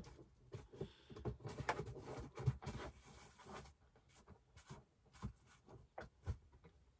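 Faint clicks, knocks and light clatters of things being handled in a motorhome's kitchen area. A quick run of small knocks comes in the first half, then a few single knocks.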